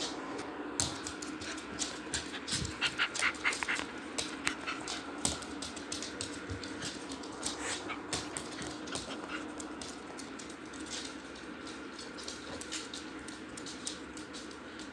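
Shetland sheepdog whining and panting for attention, with a few short high cries and a run of quick clicks and scuffles, busiest in the first few seconds.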